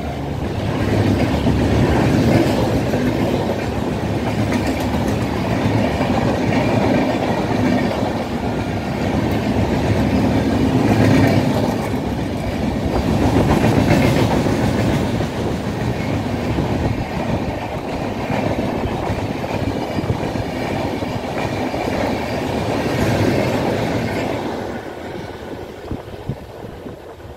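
A rake of LHB passenger coaches passing at speed, with a steady run of wheel clatter on the rails. The noise fades as the last coach draws away near the end.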